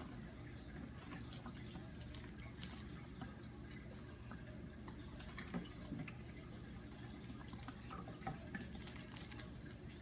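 Faint water dripping and trickling with a few light taps, over a low steady hum.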